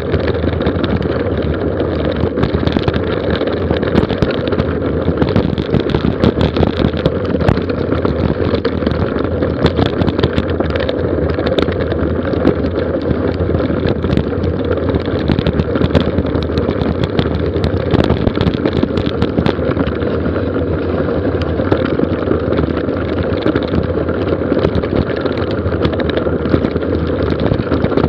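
Mountain bike descending a gravel forest road at speed: a steady wind rumble on the microphone, with tyres crunching over loose gravel and frequent small rattles and clicks from the bike.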